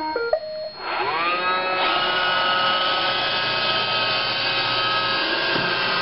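Roomba robotic vacuum playing a short tune of stepped beeps. About a second in its motors spin up with a rising whine, and it then runs steadily as it drives.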